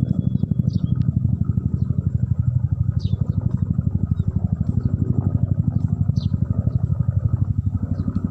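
Helicopter overhead, its rotor beating in a rapid, even thud of about a dozen or more beats a second over a low engine rumble.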